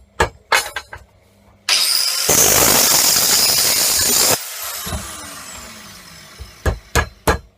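A few hammer blows on metal, then an angle grinder cutting for about three seconds, slitting the steel sleeve of a MIG torch swan neck. It stops suddenly and winds down with a falling whine, and hammer blows start again near the end, knocking the slit open.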